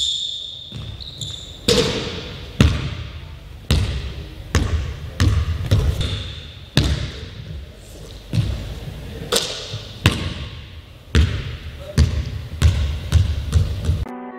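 A basketball bouncing on an indoor gym floor: about a dozen slow, uneven bounces, each followed by the hall's echo.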